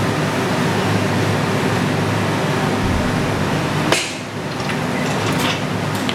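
Steady hum and hiss of a floor fan, with a single sharp metallic clank about four seconds in as the leg press machine's weight stack is lowered onto its rest at the end of the set.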